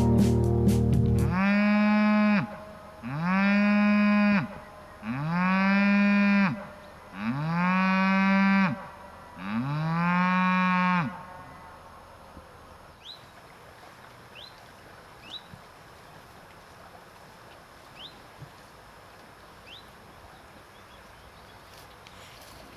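A cow mooing five times in a row, each moo long and steady and about a second apart. Afterwards faint, short rising chirps come about every second and a half.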